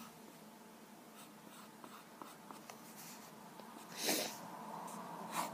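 Pencil lead scratching faintly on paper in short sketching strokes, with a brief louder swish about four seconds in.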